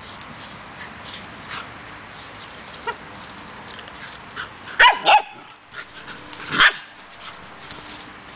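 Borzoi puppies barking in play: a quick pair of barks about five seconds in, then one more bark a second and a half later.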